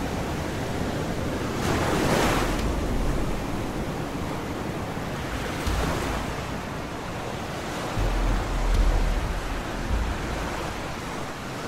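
Stormy sea with wind: waves surging and breaking, with a big surge about two seconds in and deep rumbles around eight to nine seconds in.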